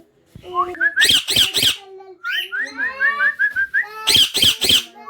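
Parrot whistling a quick run of short rising notes, broken by two sets of three harsh screeches, about a second in and again near the end.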